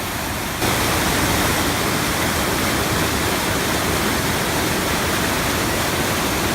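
Sydenham River water rushing over the mill dam: a loud, steady roar that gets louder about half a second in.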